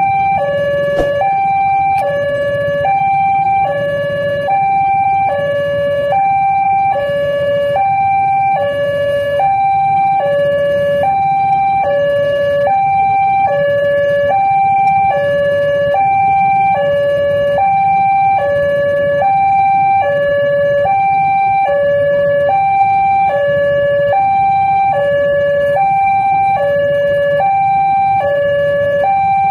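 Railway level-crossing warning alarm sounding its electronic two-tone signal, alternating steadily between a high and a low note, which means the crossing is closed for an approaching train. A low rumble of waiting traffic lies underneath.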